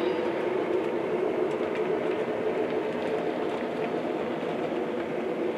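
O-scale three-rail model of a Krauss-Maffei ML-4000 diesel-hydraulic locomotive running steadily on the track. Its onboard sound system plays a diesel engine sound over the rumble of the wheels, with faint clicks from the rails.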